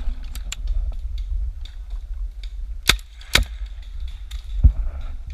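Paintball markers firing: two loud sharp shots about half a second apart near the middle, among lighter clicks and knocks, with a duller thump about a second later. Under it runs a low rumble from the moving body-worn camera.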